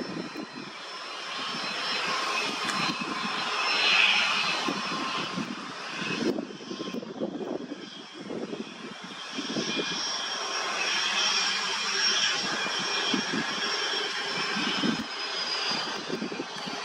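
Small twin-engine business jet's turbofans whining at low taxi power, a steady high whine over a broad rush that swells about four seconds in. Gusts of wind buffet the microphone underneath.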